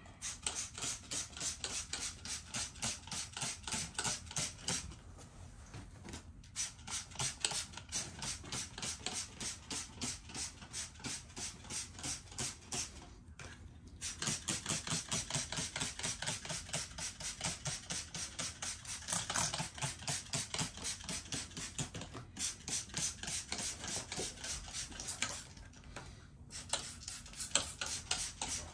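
Hand-held trigger spray bottle squirting in quick repeated sprays, about three a second, in runs broken by short pauses, misting chlorine dioxide onto the back of a carpet to treat cat urine.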